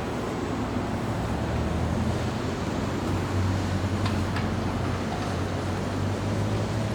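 Steady low rumble of engines and machinery at a large construction site, with traffic noise mixed in and a few faint clicks about four seconds in.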